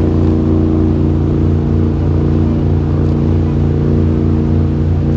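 Tour boat's engine running steadily: an even, unchanging low hum.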